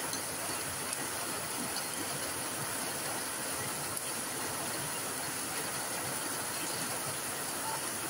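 Steady heavy rain falling on leafy tropical plants and bare ground: an even, unbroken hiss.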